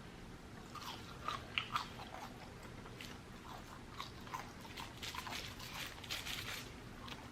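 A person biting and chewing crunchy fast food close to the microphone: wet chewing with bursts of crisp crunching, heaviest about a second in and again past the middle.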